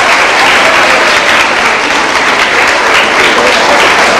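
Crowd applauding, a dense and steady clapping.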